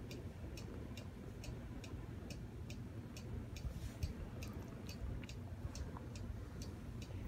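A clock ticking steadily, about two ticks a second, over a low, steady rumble.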